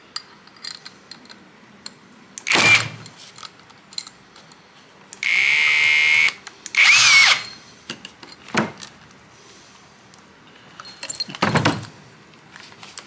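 Hand tools at work pressing a urethane suspension bushing into a control arm: a handful of short, loud bursts of metal tool noise, two of them a few seconds in carrying a high squeal.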